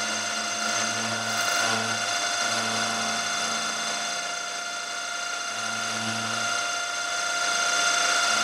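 Milling machine spindle running a 6 mm carbide end mill through steel: a steady whine with cutting noise and a bit of vibration, which the machinist puts down to climb milling and the work standing too far out of the vise.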